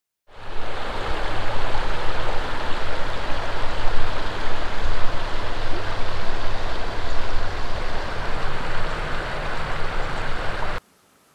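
Creek water running over rocks: a loud, steady rush with a deep rumble underneath, which starts just after the beginning and cuts off suddenly near the end.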